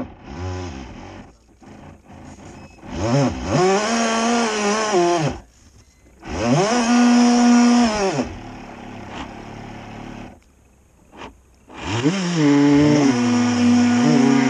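Electric drive motor of a small twin-hull model boat whining in bursts as the throttle is opened and eased off: three main runs, each rising in pitch, holding and falling away, with quieter gaps between them.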